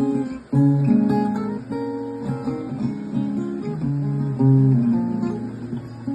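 Guitar playing a song intro: picked notes and chords following one another, with a brief break about half a second in.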